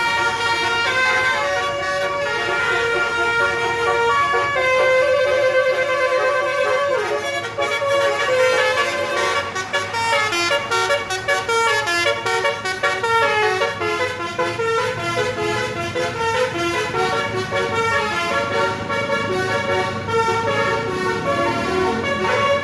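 Telolet bus horns, Indonesian multi-tone melody air horns, playing overlapping tunes from several buses at once: held notes stepping from pitch to pitch, breaking into quicker runs of notes later on.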